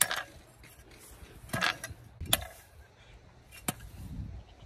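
A long-handled garden hoe chopping into dry soil and weeds, four sharp strikes at uneven intervals.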